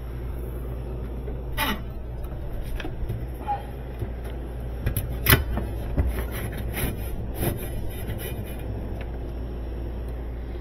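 Steady low hum of the Sub-Zero refrigerator's running machinery, with scattered clicks and knocks of metal parts being handled, the sharpest about five seconds in.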